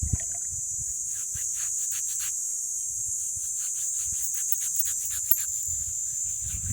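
Insects chirring in a steady high-pitched drone, with a run of short, quickly repeated chirps or calls over it.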